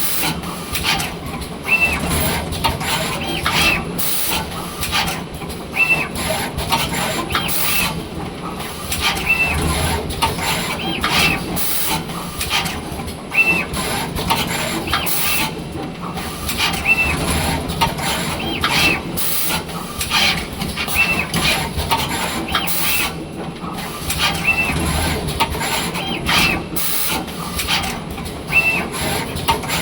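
Automatic wire-soldering machine for LED lamp boards cycling: air hisses, mechanical clicks and a short high beep that repeats about every two seconds.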